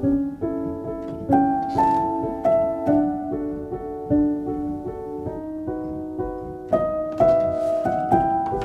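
Gentle background piano music, a slow melody of held notes.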